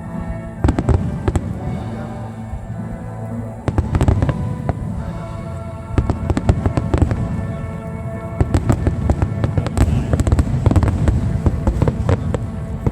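Fireworks display: many shells bursting with sharp bangs in quick succession, over music with held notes. The bangs come thickest from about four seconds in.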